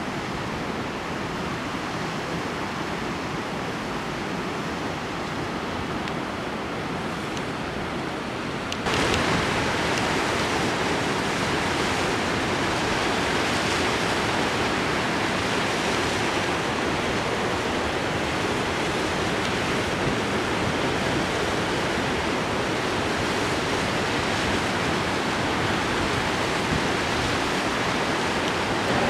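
Steady rush of fast-flowing river water over rocks, jumping louder about nine seconds in.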